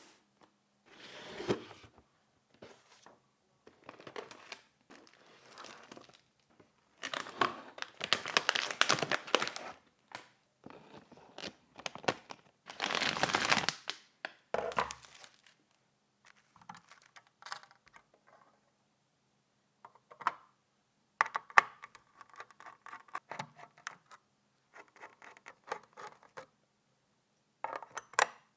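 Packaging being handled and unwrapped: plastic or paper crinkling and tearing in irregular bursts, the loudest two in the first half, followed by scattered light clicks and taps of parts being handled.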